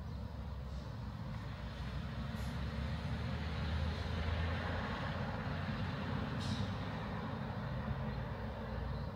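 Road traffic: a motor vehicle passing with a low rumble that swells toward the middle and eases off.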